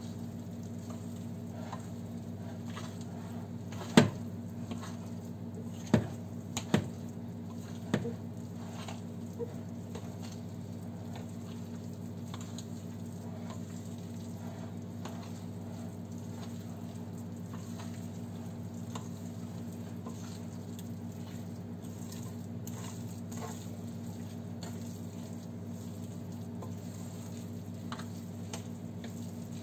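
A thick vegetable cake batter being mixed by hand in a glass bowl: soft, wet mixing sounds over a steady low hum, with a few sharp knocks between about four and eight seconds in, the first the loudest.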